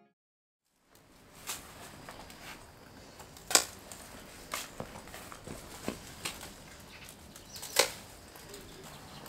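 Hand pruning shears snipping through plant stems: about six sharp snips spaced a second or more apart, after a brief silence at the start.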